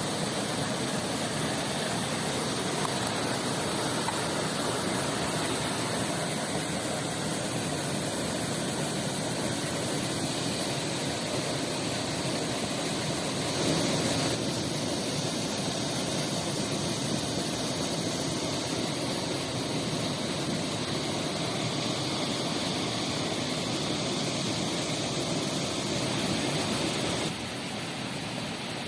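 Steady rushing of a river and waterfall, an even wash of water noise that steps down slightly in level near the end.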